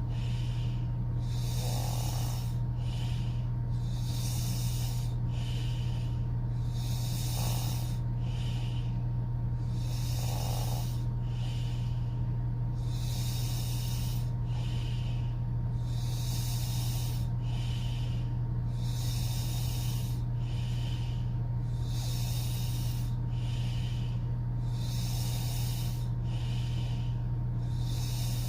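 A woman snoring through her open mouth: breathy snores in a steady rhythm, one breath in and out about every two and a half seconds, over a steady low hum.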